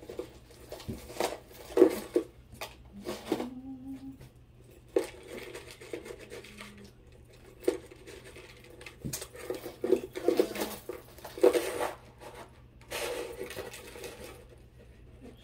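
Costume jewelry clinking and rattling as it is handled: beads, chains and metal bangles knocking together in irregular clicks and short clatters as pieces are pulled out and sorted by hand.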